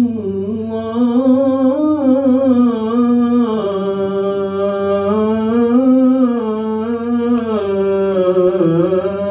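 A man singing the adhan, the Islamic call to prayer, drawing out one long melismatic phrase on 'Muhammadan rasulullah' in a single held breath. His pitch sways slowly up and down throughout.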